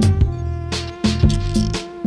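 Background music with a steady drum beat over bass and sustained tones.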